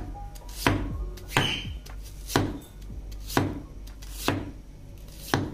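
A broad steel knife slicing a red onion into rounds on a wooden cutting board: six sharp chops, about one a second, each a knock of the blade cutting through onto the board.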